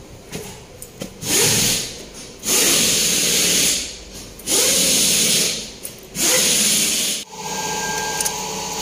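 Replacement engine in a 2009 Toyota Camry cranked on the starter in four bursts of about a second each. Near the end it catches and settles into a steady idle.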